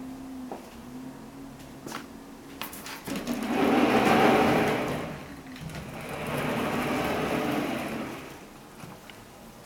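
A glass-panelled sliding door running along its track, moved one way and then back: two slides of about two seconds each.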